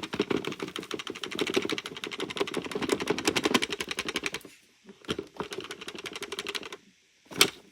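Plastic parts of a clogged Hoover vacuum clattering in a fast rattle for about four seconds as it is worked at to loosen packed-in debris, then more quietly, then one sharp knock near the end.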